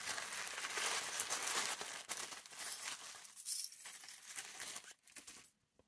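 Tissue paper rustling and crinkling as a small wrapped packet is opened, with a few light clinks of small metal charms. The rustling thins out after about three seconds.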